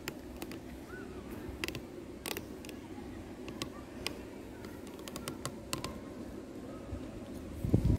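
Quiet outdoor background noise with scattered short, sharp clicks and ticks; the siren is not sounding.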